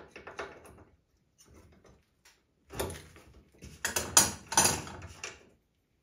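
Metal hand tools and fittings handled on a metal workbench: a few light clicks at first, then a louder cluster of clattering knocks and scrapes about three to five seconds in.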